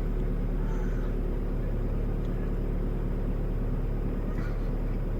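Car engine and road noise heard from inside the cabin of a moving car: a steady low hum.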